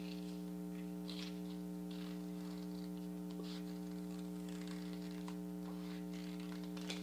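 Scissors making faint, irregular snips as they cut through two stacked sheets of construction paper, over a steady electrical mains hum.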